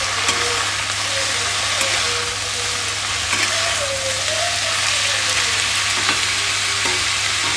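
Sliced potato, onion and pointed gourd sizzling in hot oil in a kadhai, with a steady frying hiss, while a steel spatula stirs and scrapes the pan now and then.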